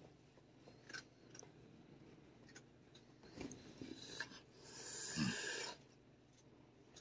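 Faint handling sounds of a suede work glove rubbing against a cat's fur, with a few light clicks and, about five seconds in, a breathy rush of noise lasting about a second as the cat turns to bite at the glove.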